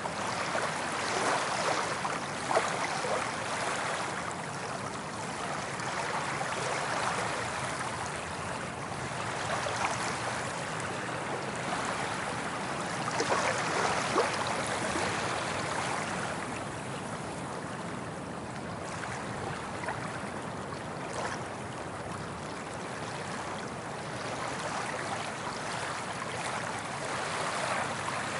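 Soft ocean waves breaking and washing up the beach, the surf swelling and easing every few seconds.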